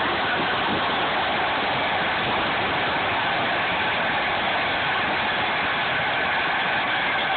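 Dresser crawler bulldozer on the move: its diesel engine and steel tracks make a steady, dense noise that does not let up.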